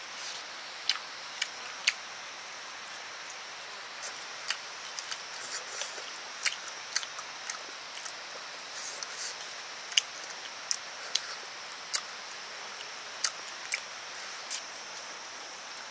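Sharp light clicks and taps at irregular intervals, roughly one or two a second, over a steady high hiss.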